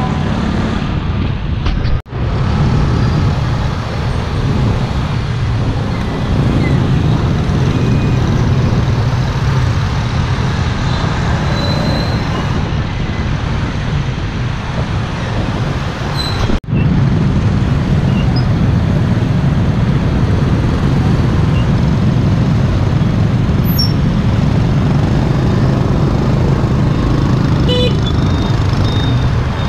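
Steady road-vehicle noise, a continuous low rumble of traffic or a moving vehicle, that briefly cuts out about two seconds in and again past the middle.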